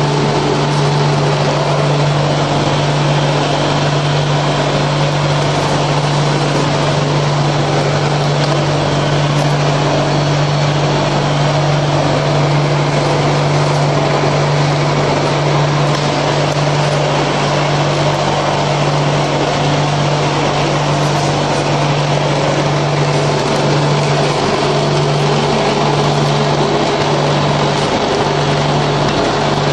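Electric vibrating table of a paver block making machine running with a loud, steady hum, shaking concrete-filled plastic paver moulds to compact the mix.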